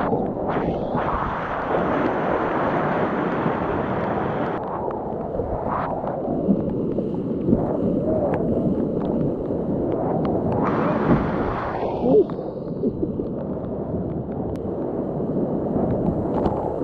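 Whitewater rapids rushing and churning around a kayak, heard close from a camera on the paddler, with short splashes. The rushing swells brighter and louder twice, near the start and again about eleven seconds in, as the boat drops through stretches of heavier whitewater.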